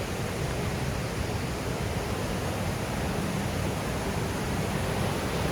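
Fast-flowing creek water rushing steadily in strong, heavy flow.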